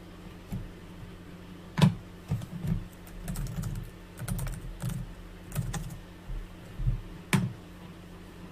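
Typing on a computer keyboard: irregular keystrokes in scattered short runs, with two sharper, louder clicks, one about two seconds in and one near the end.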